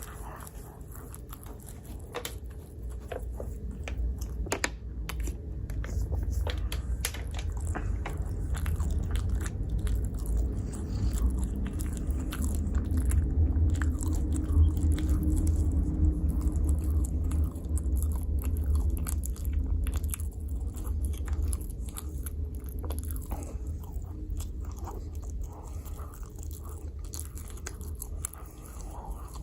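Close-miked chewing of microwave pizza, with scattered wet clicks and crunches over a steady low mouth rumble that grows louder in the middle.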